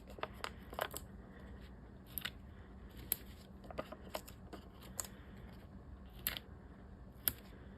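Faint, scattered small clicks and crackles of foam adhesive dimensionals being peeled from their backing sheet and pressed onto the back of a cardstock piece, about ten over several seconds.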